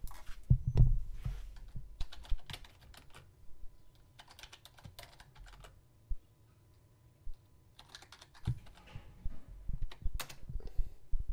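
Computer keyboard typing in short bursts of rapid key clicks separated by brief pauses, as a search query is typed in. A couple of dull low thumps come near the start and again about eight and a half seconds in.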